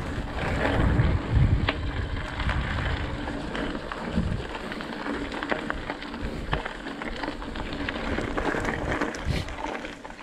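Mountain bike rolling fast down a dirt and gravel trail: tyre noise with many short clicks and rattles from the bike over bumps, and wind buffeting the microphone, strongest about a second in.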